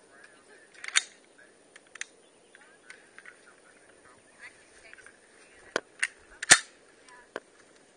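Sharp cracks of rifle fire: one shot about a second in, then a quick cluster of three cracks near the end, the last of them the loudest.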